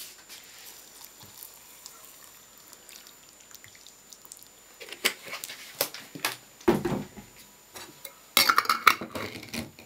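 Water poured from a plastic bottle into a glass jar of vegetables, a faint trickle, topping up the pickling liquid. Then a few knocks and a dense clatter of glass and plastic about eight and a half seconds in as the bottle and jar are handled.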